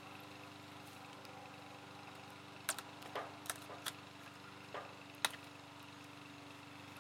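A dog's claws scratching and knocking at stacked split firewood: a handful of sharp clicks and knocks over a couple of seconds in the middle, the last one the loudest, over a faint steady mechanical hum.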